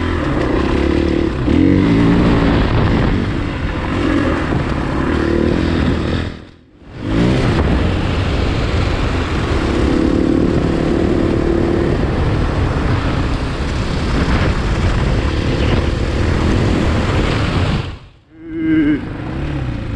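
Off-road motorcycle engine running on a trail ride, its pitch rising and falling with the throttle. The sound drops away sharply twice, about six and a half and eighteen seconds in.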